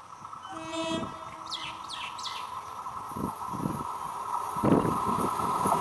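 Approaching Howrah–Katwa EMU local train, its running noise growing steadily louder, with a short horn note about half a second in. Birds chirp about two seconds in.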